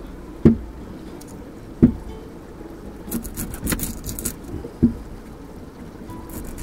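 Onion being worked with a knife on a wooden chopping board: a few single knocks on the board, and a run of short crackles in the middle as the dry onion skin is cut and peeled.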